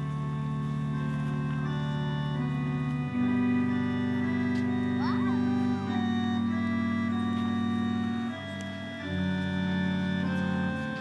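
Organ playing slow, held chords that change every second or two, with a brief lull about eight seconds in.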